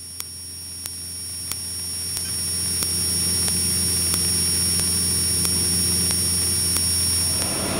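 Cessna light aircraft's piston engine and propeller droning steadily in flight, heard from inside the cabin; the sound fades in over the first three seconds, then holds level.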